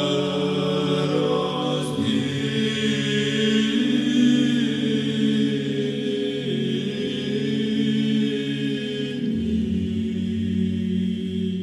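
Unaccompanied choir singing a slow chant in long held chords over a low bass note, with the chord changing about two seconds in and again near the end.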